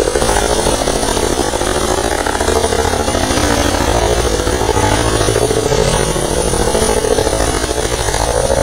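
Helicopter hovering low overhead as it comes in to land: steady, loud rotor and turbine noise with a fast blade chop.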